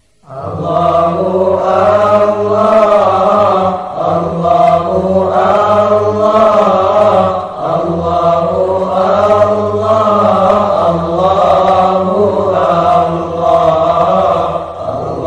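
Sholawat, Indonesian Islamic devotional song: a group of singers chant Arabic verses over a steady low accompaniment. It starts abruptly about a third of a second in, after a moment of silence between tracks.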